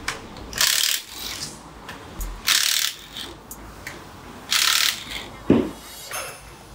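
An air impact wrench running on lug nuts in short bursts, three times about two seconds apart, with a short thump near the end.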